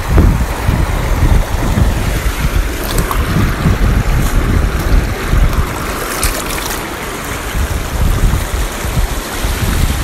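Wind buffeting the phone's microphone over the steady rush of river rapids, with water splashing about six seconds in as a fish is released by hand into the shallows.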